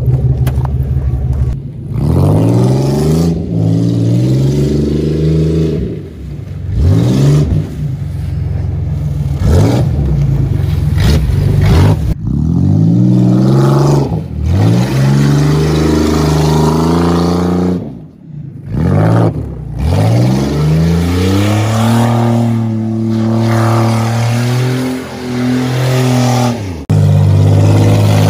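An old sedan's engine revving hard again and again as the car spins donuts in snow. The pitch climbs and falls about eight times, and it holds high for several seconds late on.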